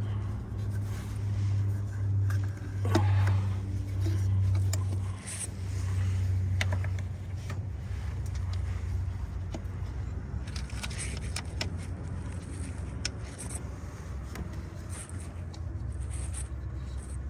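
Metal hand tools, a socket wrench on ignition-coil bolts and spark plugs, clicking and scraping in scattered short bursts, over a steady low hum.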